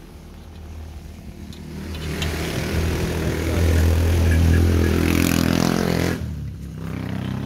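Owner-type jeep's carbureted gasoline engine running under throttle. It swells for a few seconds, then falls back sharply about six seconds in to a lower hum. The engine keeps dying, which the family puts down to a fuel pump that won't deliver fuel.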